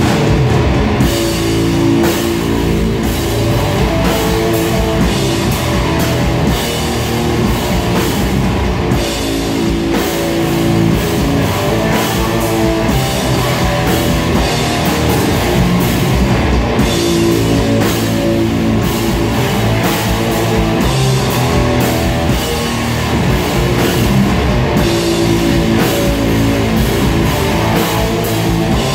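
Doom metal band playing live and loud: electric guitars and bass over a drum kit, sustained heavy riffing with no break.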